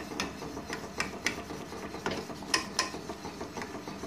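Wire whisk stirring cooking custard in a stainless steel saucepan, the wires rubbing and clinking against the pan in repeated light, irregular strokes.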